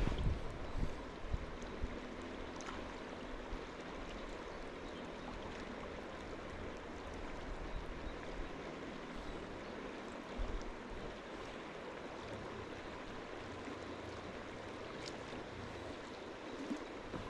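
River water flowing steadily as a constant rushing hiss, with a brief low rumble near the start and again about ten seconds in.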